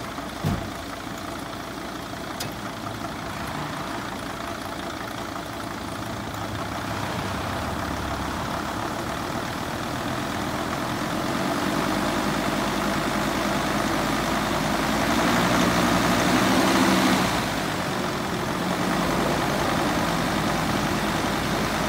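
2006 Mercedes Sprinter's five-cylinder diesel engine running in drive against the parking brake and lightly accelerated, its note building slowly, then dropping back sharply about three-quarters of the way through and rising a little again. The running engine carries the noise of the fan clutch's failing bearing.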